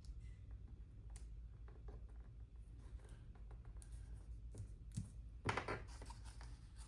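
Faint handling of paper sticker sheets and a planner: scattered light taps and clicks, with a short rustle of paper about five and a half seconds in.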